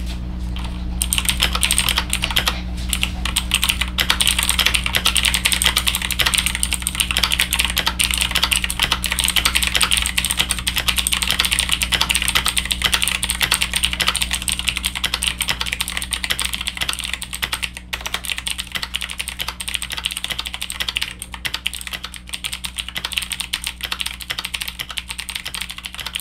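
Fast, continuous typing on a Zeus G61 budget mechanical keyboard: a dense stream of key clacks that thins out a little in the last third. A steady low electrical hum runs underneath.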